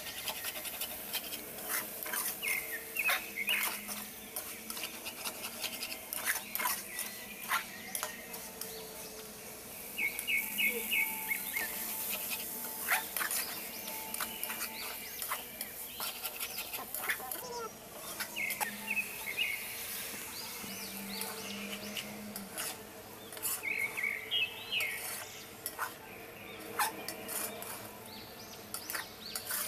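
A metal ladle scraping and clinking against a steel pot as chickpeas and soya chunks are stirred, in many short irregular clicks. Birds chirp in short bursts at intervals.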